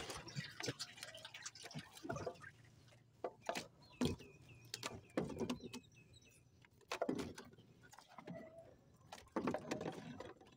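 Water splashing and dripping with irregular knocks and rattles as a fish trap is hauled up and handled over the side of a small boat.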